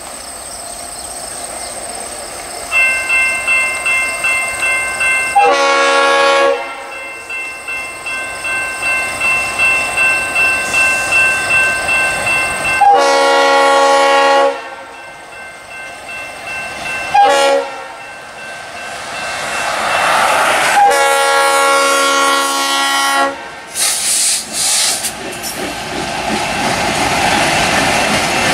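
Diesel locomotive air horn sounding the grade-crossing signal, long, long, short, long, over a steady pulsing ring. It is followed by the train rumbling past with wheels clacking on the rails.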